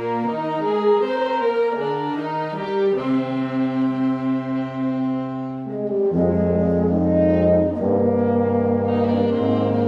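Student concert band playing long sustained chords on saxophones and brass. About six seconds in, a low bass line comes in and the band gets a little louder.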